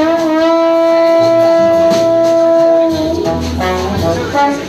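Jazz trombone holding one long note for about three seconds, then moving into a quick phrase of shorter notes, with upright bass walking underneath in a slow ballad.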